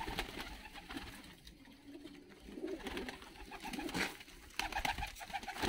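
Domestic fighting pigeons cooing, several low coos, with scattered small rustles and clicks from the flock.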